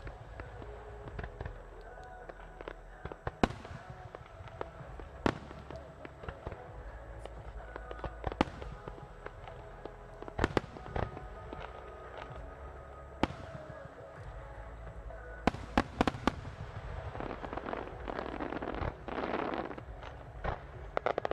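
Firework shells bursting overhead with sharp bangs every few seconds, including a quick run of several bursts a little past the middle. Toward the end comes a dense hissing crackle as ground-launched fountains and comets go up.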